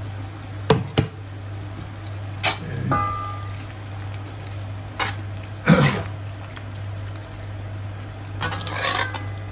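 A spatula stirring sambal godok, a spicy stew of prawns, tempeh, tofu and long beans, as it comes up to the boil in the pot, the liquid bubbling steadily. Several sharp knocks of the spatula against the pot punctuate it, one about three seconds in with a brief metallic ring.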